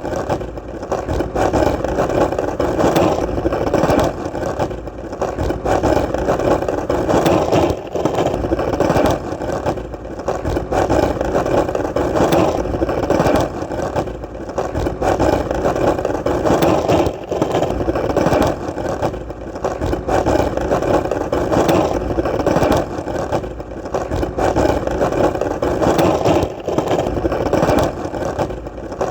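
Skateboard wheels rolling over hard, solid ground: a continuous rumbling roll with short dips in level every few seconds and occasional faint clicks.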